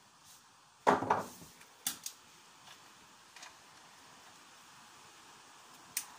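A hand tool knocking and clicking on the metal of a vehicle's front axle hub: a sharp knock about a second in, then a few lighter clicks, one near the end, over quiet room tone.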